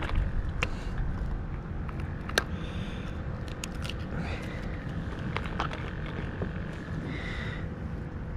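Sharp metallic clicks and taps of fishing pliers working a hook out of a speckled trout's mouth in a landing net, loudest about two and a half seconds in and in a quick cluster soon after, over a steady low rumble.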